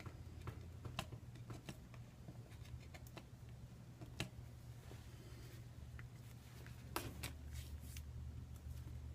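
Faint scattered clicks and taps of small phone parts being handled by hand, over a steady low hum.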